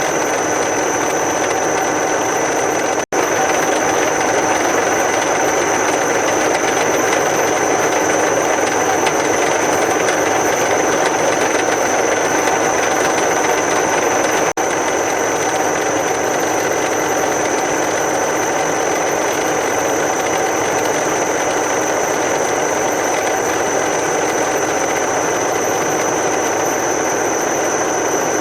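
A machine tool running steadily, with a constant high whine over a dense mechanical noise. The sound drops out for an instant twice, about three seconds in and again about halfway through.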